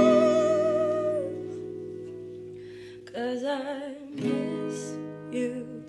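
Acoustic guitar and a woman's singing voice. A held sung note with vibrato fades over the first second while the guitar chord rings on, then wordless vocal runs come in about three seconds in over the strummed guitar.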